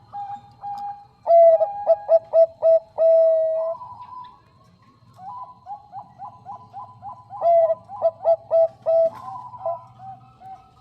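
Zebra dove (perkutut bangkok) cooing: two loud runs of quick staccato coos, each ending in a longer held note, starting about a second in and again about seven and a half seconds in. Softer cooing runs between the two runs.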